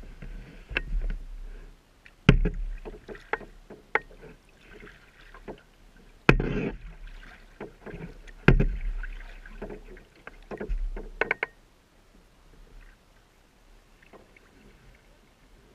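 Kayak paddle strokes: water splashing and dripping off the paddle blades, with a few sharp knocks of the paddle against the Pelican Quest 100 kayak's plastic hull. It goes quieter for the last few seconds.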